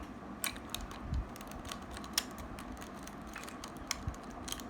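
A plastic 3x3 Rubik's cube being turned by hand: irregular light plastic clicks as its layers are twisted, with a couple of dull knocks.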